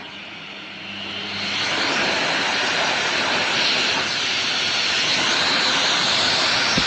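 Pecute high-velocity dog dryer blowing through a nozzle. The rush of air rises over the first two seconds as the power is turned up toward maximum, then holds steady.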